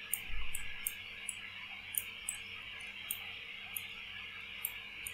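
Faint, irregular ticks of a pen writing, over a steady background hiss, with a soft low thump about half a second in.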